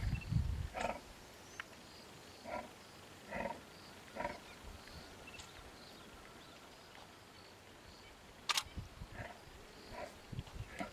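Lion growling low, fading out within the first second, then a few short calls about a second apart with faint high chirps, and one sharp click about eight and a half seconds in.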